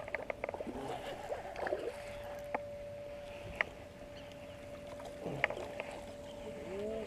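A bass boat's electric trolling motor giving a steady, even whine, with scattered light clicks and taps over it.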